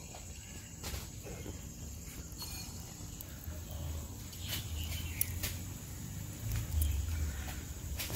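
Lumps of bottle-gourd batter dropped by hand into hot oil in a karahi and starting to fry, with faint sizzles and a few sharp clicks. A steady high-pitched drone runs underneath.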